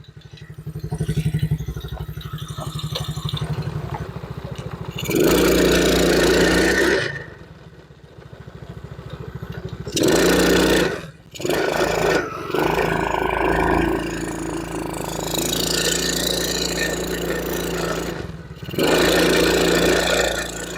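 Small single-cylinder engine of a Tao Tao 100cc kids' ATV running, revved up loud several times and dropping back to a lower speed in between. It is running again now that its plugged carburetor jet has been cleared.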